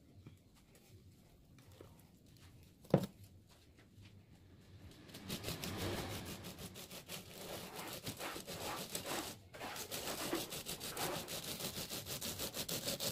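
A single sharp knock about three seconds in, then from about five seconds a rapid rasping scrape: a wooden profile template pushed along wet sand-cement mortar, shaping a cement fascia board.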